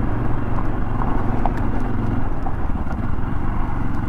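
Yamaha XT 600 E's single-cylinder four-stroke engine running at a steady pitch as the bike climbs a loose, rocky trail, with a few faint ticks over it.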